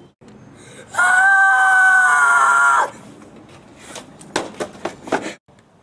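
A boy's long, steady, high-pitched scream of about two seconds, then a quick run of sharp knocks.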